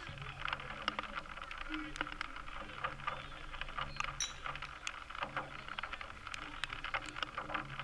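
Outdoor football match ambience: faint voices on the pitch and scattered sharp clicks and knocks, with a brief high whistle chirp about four seconds in.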